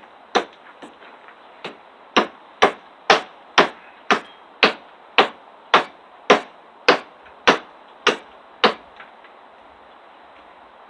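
Survival multi-tool hatchet chopping wood: two single strikes, then a steady run of about a dozen sharp chops, roughly two a second, that stops well before the end.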